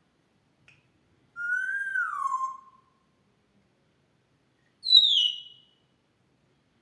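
African grey parrot whistling: a long note about a second and a half in that rises slightly and then slides down, then a shorter, louder, higher whistle near the five-second mark that falls in pitch.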